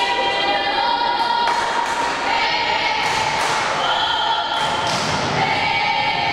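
Volleyball rally in a gym hall: several sharp thuds of the ball being played and of feet on the court, with long, steady sung tones ringing through the hall over them.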